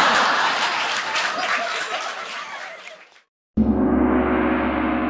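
Applause sound effect fading out over about three seconds, then after a short gap a single gong stroke that rings on and slowly dies away.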